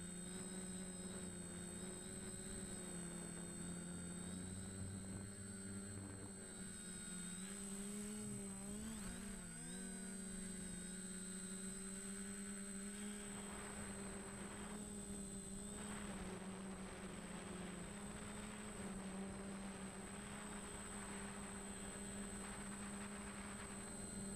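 DJI Flamewheel F450 quadcopter's electric motors and propellers running steadily, heard from the camera mounted on it; the pitch wavers briefly about eight to ten seconds in as the motor speeds change.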